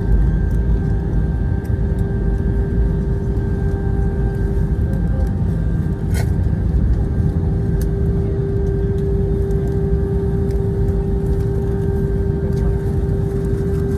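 Steady airliner cabin noise inside an Airbus A320: a low rumble with a constant engine hum, and a short click about six seconds in.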